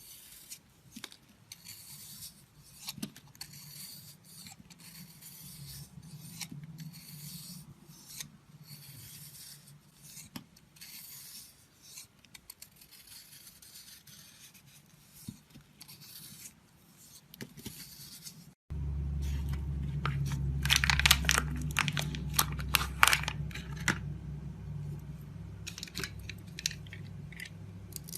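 A knife carving and scraping a bar of soap: a run of dry, scratchy strokes. About two-thirds of the way through it cuts suddenly to louder, crunchier cutting over a low steady hum.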